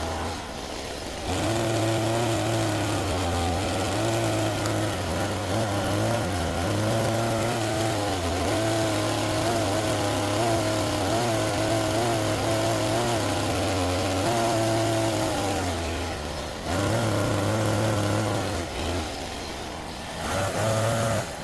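Homemade RC excavator's motors running with a steady hum, the pitch wavering as the machine works. It stops briefly a few times: near the start, about three quarters through, and toward the end.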